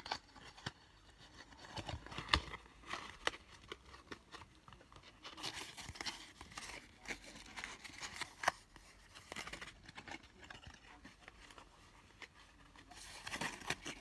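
Die-cut patterned cardstock being folded and creased into a small box by hand: paper rustling and crinkling with many scattered sharp clicks.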